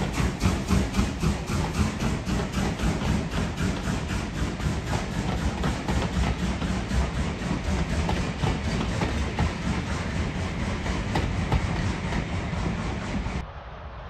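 Steam locomotive working a train, with rapid, even exhaust beats at about five a second that gradually fade and blur as it passes. The sound cuts off abruptly about 13 seconds in.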